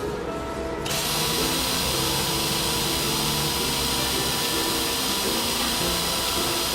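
Steady mechanical whirring, like a small motor running, that starts about a second in, with short low tones coming and going beneath it.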